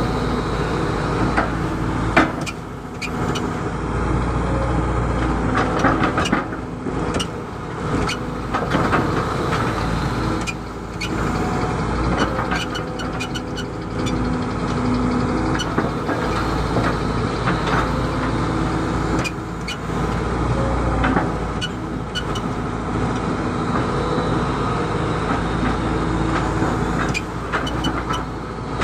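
Excavator's diesel engine running steadily, with short knocks and clatter scattered through as the machine digs.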